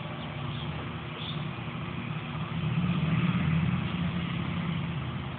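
A low engine hum of a motor vehicle, swelling about halfway through and easing off again.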